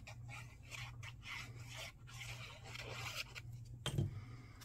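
Cardstock being handled and glued, with soft scraping and rustling of paper, then a light knock about four seconds in as the piece is set down on the paper band on the table.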